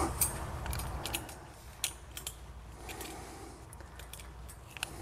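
Faint, scattered metallic clicks and jingling of a bundle of loop-end rebar tie wires and a tie-wire twister hook being handled while tying rebar intersections.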